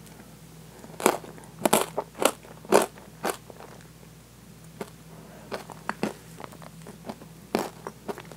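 Close-miked mouth sounds of chewing soft, creamy French toast and ice cream: sticky, wet chewing clicks. They come in a dense run of loud clicks between about one and three and a half seconds in, then sparser, quieter ones, with one more loud click near the end.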